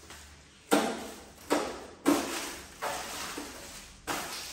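Plastic stretch wrap being pulled and torn off a packaged worktop panel: about five sharp crinkling rips, each fading quickly.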